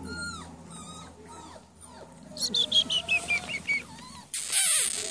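Puppy whimpering: faint whines, then a quick run of about eight high yelping cries, each falling in pitch, about halfway through. A loud burst of noise follows near the end.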